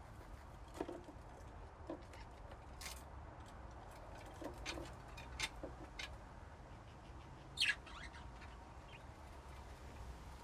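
Budgies in a colony cage giving scattered short, high chirps, the loudest a quick falling chirp about three-quarters of the way through, over a faint steady low hum.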